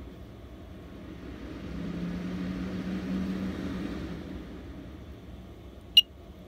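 A ventilation fan running with a steady hum and airy rush that grows louder for a couple of seconds and then settles back as its speed is changed. A single sharp click comes near the end.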